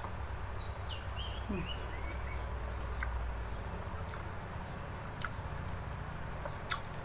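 Several short bird chirps in the background over a steady low hum, followed by a few scattered light clicks.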